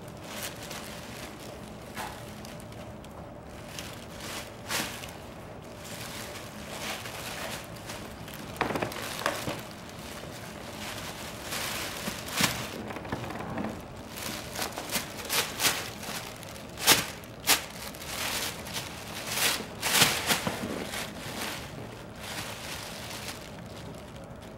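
Thin plastic shopping bag crinkling and rustling as a Bengal cat burrows, paws and pounces inside it. The crackles come in irregular clusters, sparse at first and thickest in the middle and later part.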